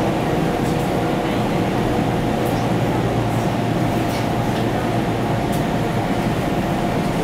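Running noise inside a JNR 489 series limited express electric train car at speed: a steady rumble with a constant tone held over it.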